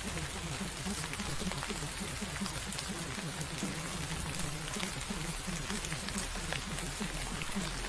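Rain falling, a steady patter of drops with a constant background hiss.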